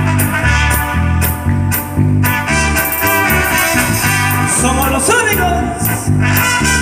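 Live band music from a Latin group: keyboards, electric guitar, bass and drums playing a steady beat, with a voice joining in around five seconds in.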